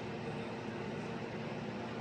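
Steady hiss with a faint low hum, unchanging, with no voice or alert tone.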